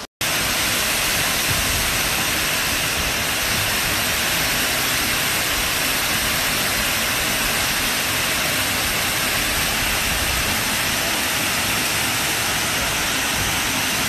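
Tall waterfall plunging into a pool: a loud, steady rush of falling water, starting abruptly just after the start.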